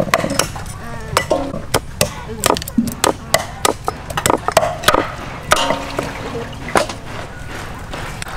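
Large kitchen knife chopping and cutting through a fish head and bones on a wooden chopping block: repeated sharp knocks, irregularly spaced, about two or three a second.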